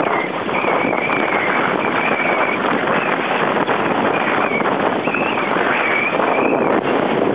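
Strong wind rushing over the microphone and choppy water splashing and slapping against the hull of a sailing outrigger canoe under way in a stiff breeze. A wavering high whistle comes and goes in short stretches throughout.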